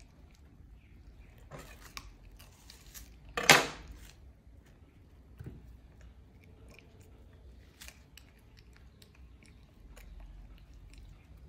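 A macaque eating watermelon, its chewing heard as many small scattered clicks. One brief, louder noise comes about three and a half seconds in.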